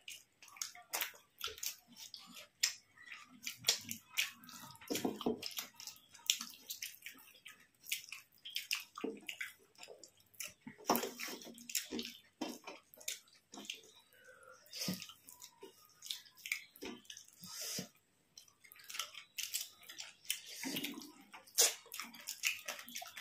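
People eating rice with fish curry close to the microphone: wet chewing, lip smacks and sticky squishing of food, many short irregular clicks scattered throughout.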